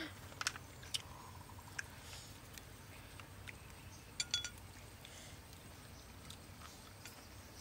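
Faint scattered clicks and crackles of fingers handling crispy fried pork and leaves, over a low steady background hum, with a brief cluster of sharp ticks about four seconds in.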